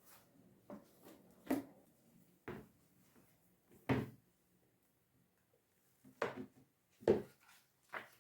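A series of about seven short, light knocks and clunks at irregular intervals, like household objects being handled and set down.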